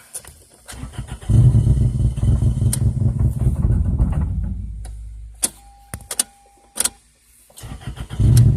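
2002 Toyota Corolla's 1.8-litre four-cylinder engine, which the owner calls a bad motor, being started: it catches about a second in, runs for a few seconds and dies away. A few clicks and a brief steady beep follow, then the engine fires up again near the end.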